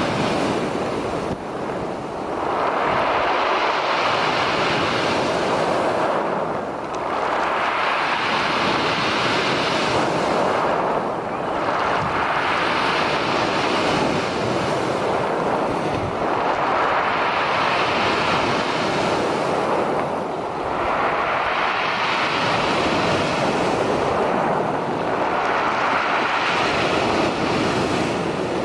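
Black Sea waves breaking, a noisy wash of surf that swells and falls back about every four to five seconds, with wind buffeting the microphone.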